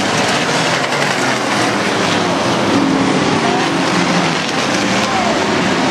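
A pack of Outlaw Sportsman stock cars racing around an oval track, many engines running together, loud and steady, with engine pitches drifting up and down as cars pass.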